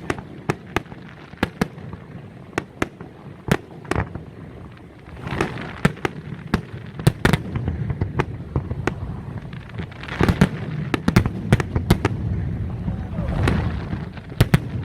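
Fireworks display: a steady run of sharp bangs from shells bursting overhead, swelling into denser, louder volleys several times.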